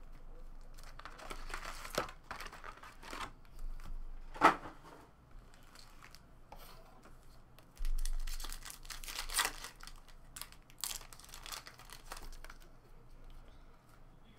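Foil trading-card packs being torn open and crinkled by hand, in irregular rustling bursts with one sharp crackle about four and a half seconds in. A dull bump comes at about eight seconds.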